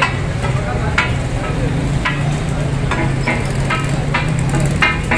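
Metal spatulas clanging on a tawa griddle while chicken fries: about eight sharp, ringing strikes at an uneven pace, over a frying sizzle.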